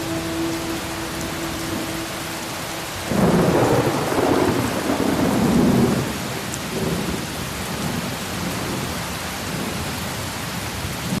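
Storm sound effect: steady heavy rain, with a loud rumble of thunder starting about three seconds in that lasts about three seconds and then dies back into the rain.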